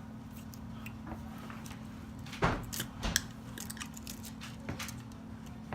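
A few small clicks and taps from handling the new iPhone 6 screen assembly as it is brought onto the phone, the loudest two about two and a half and three seconds in, over a steady low hum.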